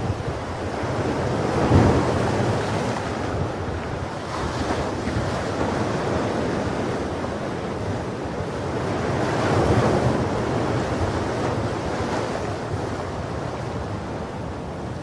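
Ocean waves washing onto a beach, a steady surf wash that surges louder about two seconds in and again near ten seconds in.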